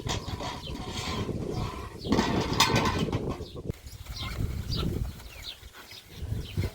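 Outdoor animal sounds: many short, quick chirps of small birds, repeating throughout, over a louder noisy stretch in roughly the first half.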